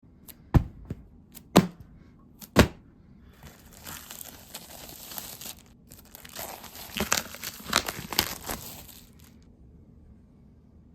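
Three sharp knocks about a second apart, then packaging being torn open, crinkling and tearing for about six seconds before stopping suddenly.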